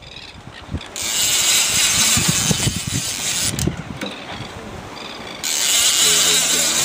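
Lever-drag overhead game-fishing reel being cranked against a heavy fish, its mechanism clicking and rattling under a steady hiss. The hiss gets louder near the end.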